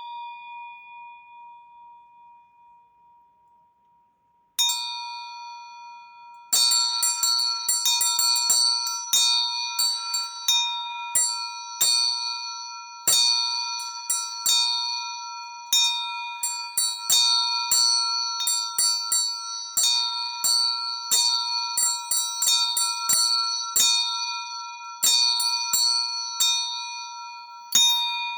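A belfry set of eight bells rung in Orthodox style. A single bell rings and fades. A second bell is struck about four and a half seconds in, and from about six seconds several bells ring in quick, uneven strikes as a continuous peal.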